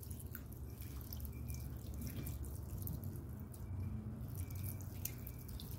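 Water pouring in a thin stream from a plastic watering can's spout over a hand onto potting soil, with many small splashes.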